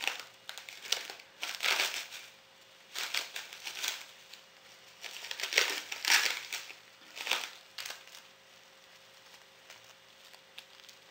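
Plastic cling film crinkling and rustling as a sheet is handled and spread out, in a run of short bursts over the first seven seconds or so, then only faint rustles.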